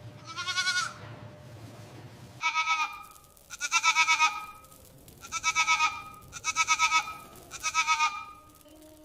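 Goat bleating six times in a row, each call short and quavering, with short pauses between them.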